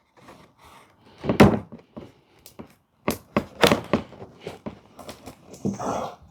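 Hands handling a cardboard advent calendar box: scattered knocks and thunks, the loudest about a second and a half in, and a brief scrape or rustle near the end.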